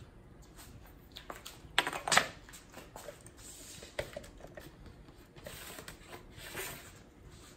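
Tape measure and a metal rule handled on a sheet of MDF: a quick clatter of clicks and knocks about two seconds in, a few single taps, then soft scraping as the rule slides across the board.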